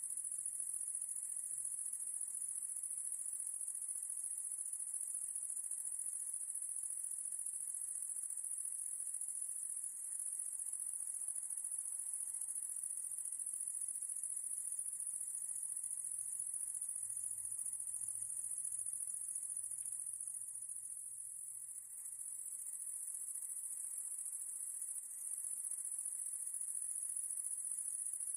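Insects chirring in a steady, high-pitched drone that dips briefly about three quarters of the way through.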